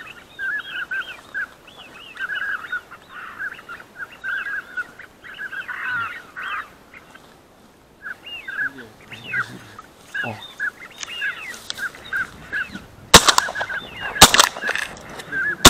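Ducks quacking in quick, repeated series, then shotgun fire: two shots about a second apart near the end and a third just as it closes, at ducks flying over a shooting blind.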